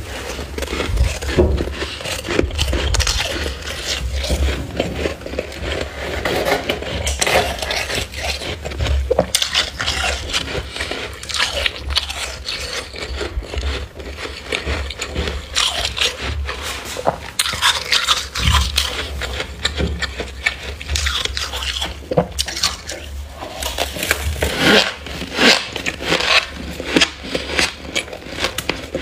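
Metal spoon scraping and scooping thick frost build-up from the walls of a freezer: repeated scrapes at an uneven pace, with a steady low hum underneath.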